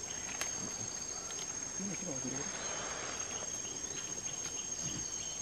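A steady high-pitched insect chorus, with a couple of sharp clicks.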